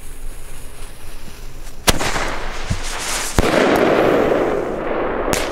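A fireworks mortar shell, the Vortex Salut, fired from its tube: a sharp launch bang about two seconds in, a hiss as it climbs, then a loud bang about a second and a half later as it bursts in the sky, followed by a long trailing rumble. Another sharp crack comes near the end.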